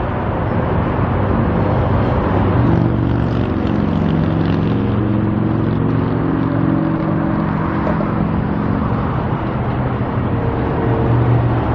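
Road traffic: cars passing, with a vehicle engine's steady hum coming in about two and a half seconds in, fading near the end and returning.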